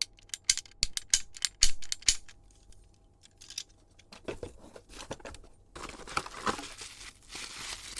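Hardware parts of a door lock kit being handled, with a quick run of sharp clicks and taps over the first two seconds and a few knocks around four seconds. From about six seconds in, packaging rustles and crinkles.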